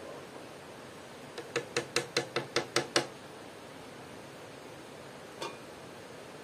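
A quick run of about nine light knocks, about six a second, then a single one a couple of seconds later: kitchenware knocking and clinking during cooking.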